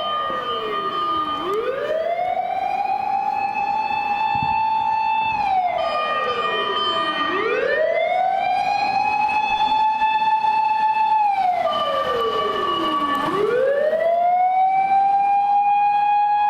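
Fire engine siren on an emergency run, from an aerial ladder truck, wailing in slow cycles. The pitch sweeps up, holds high for about four seconds, then slides down, about every six seconds, three times over. A second, higher steady tone sounds while each wail falls.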